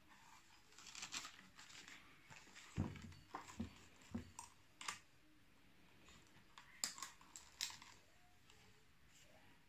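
Faint handling sounds of a stiff leather sheath being fitted over a steel axe head and its strap fastened: rustling and scraping of leather, a dull knock just before three seconds in, and a few sharp small clicks around seven seconds in.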